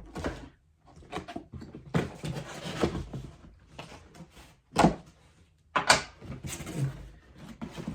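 Package being unpacked by hand: irregular rustling and handling of the packing material, with two short sharp noises about five and six seconds in.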